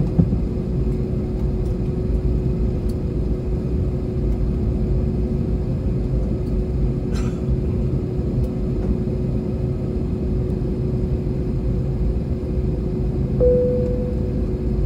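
Airbus A321neo cabin noise while taxiing: a steady low rumble from its Pratt & Whitney PW1100G geared turbofans and rolling wheels, with a constant hum throughout. There is a sharp knock right at the start, and a second, higher steady hum joins near the end.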